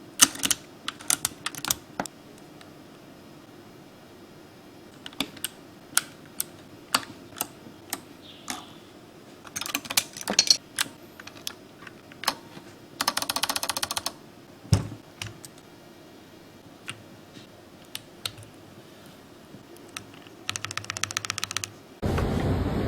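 Mechanical keyboard keys being pressed: scattered single clicky keystrokes with two short runs of fast repeated presses. Plucked ukulele-like music starts just before the end.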